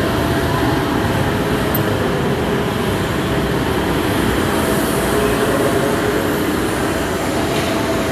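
Hogwarts Express replica steam locomotive standing at the platform, letting off a steady loud noise of steam.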